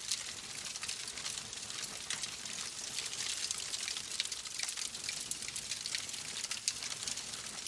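Oak logs burning in a fireplace: a steady hiss with frequent small crackles and pops.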